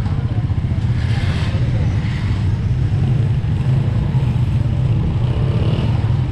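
Motorcycle engines running and passing close by in street traffic, a steady low engine drone with brief rises in hiss about one and two seconds in.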